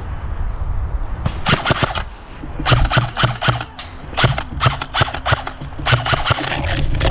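Airsoft gun firing on full auto: four rapid bursts of about a second each, the first starting about a second in.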